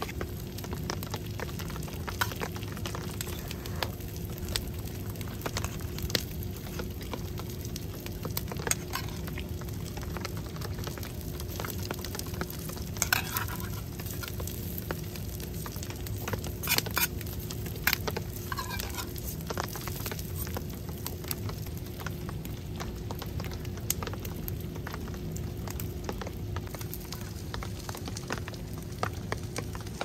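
Stir-fry of peppers and meat sizzling in a skillet set over a wood-burning camp stove, a steady hiss with the fire crackling in scattered sharp pops, a few louder ones near the middle.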